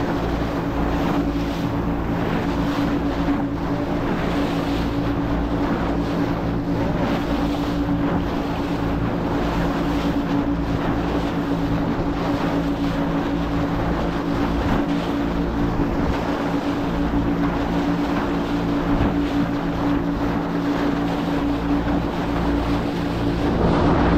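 A motorboat's engine running with a steady drone, with the rush of water and wind on the microphone.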